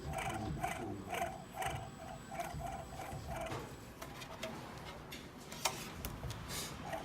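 Packaged air conditioner's fan motor making a rhythmic squealing noise, about four pulses a second, which fades out about halfway through; this is the abnormal noise that called for a fan motor replacement. A single sharp click follows later.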